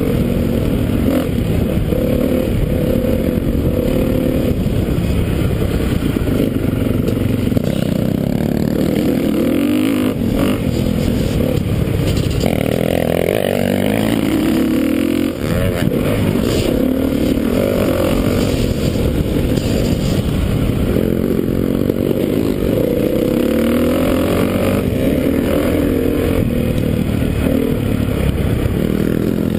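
2013 Honda CRF450's single-cylinder four-stroke engine revving up and down as the dirt bike is ridden hard around a motocross track, briefly dropping off about fifteen seconds in.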